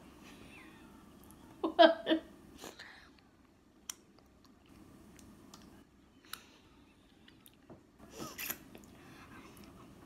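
Wet mouth sounds of fingers being licked and sucked: small lip smacks and clicks. A short, loud vocal sound comes about two seconds in, and a brief breathy sound near the end.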